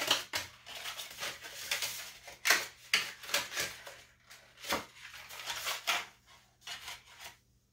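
Packaging being handled: a run of irregular clicks, knocks and rustles as a facial cleansing brush is taken out of its box and insert, dying away near the end.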